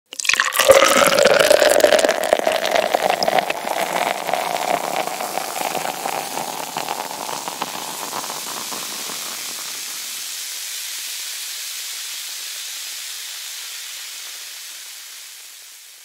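Cold beer poured into a glass: a loud pour whose pitch rises as the glass fills. After about eight seconds the pour gives way to the steady fizzing hiss of the foam head, which slowly fades away near the end.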